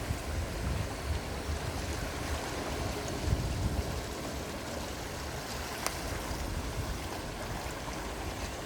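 Gentle sea waves washing in steadily, with a low rumble of wind on the microphone.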